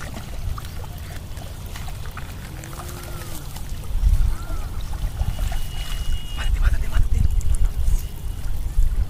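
Low rumbling buffeting of wind on the microphone, heavier and gustier from about four seconds in, with faint distant voices calling out a few times.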